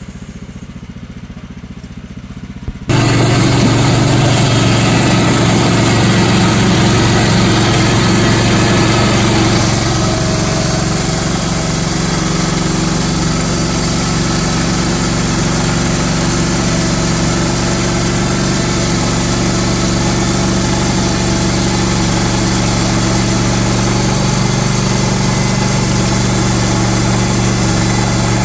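Sawmill's gas engine running steadily, then abruptly much louder about three seconds in, where it holds a steady high-speed drone with slight dips in level.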